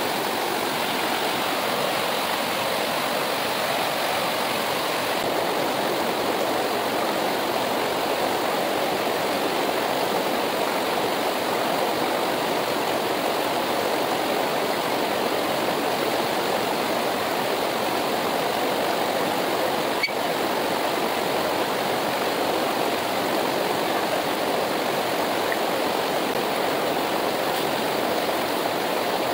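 Himalayan mountain river flowing, a steady, even rush of water. There is one brief click about two-thirds of the way through.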